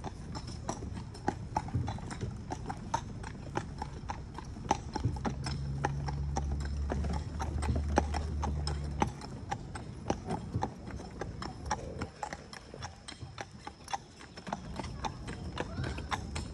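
A horse's hooves clip-clopping steadily on an asphalt road as it pulls a carriage. A low rumble joins in for a few seconds in the middle.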